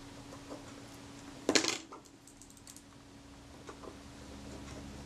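Small metal tools clicking and tapping against a Kodak Retina IIIc shutter assembly during reassembly, with one short, louder metallic clink about one and a half seconds in and a few faint ticks after it.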